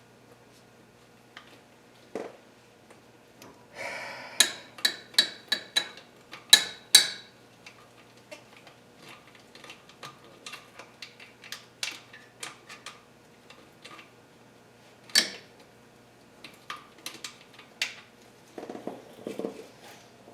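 Metal hand tools clinking and tapping against the engine's oil pan bolts, with a quick run of sharp, ringing metallic clicks a few seconds in and scattered lighter ticks after.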